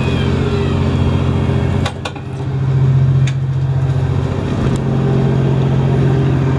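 Fishing boat's engine running with a steady low drone, with a few sharp clicks around two, three and five seconds in.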